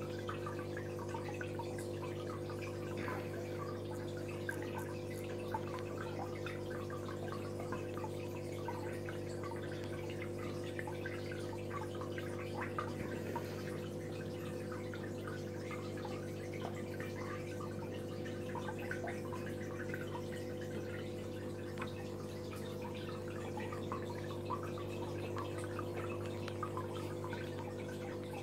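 Aquarium water trickling and dripping in many small splashes over a steady low electric hum from the tank's running pump.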